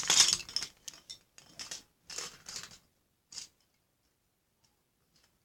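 Small plastic toy tool pieces being handled and fitted together: a quick run of short rustles and clicks that stops after about three and a half seconds.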